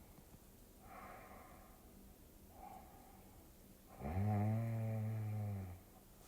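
A person snoring: two faint breaths, then about four seconds in a loud, low, steady-pitched snore lasting nearly two seconds.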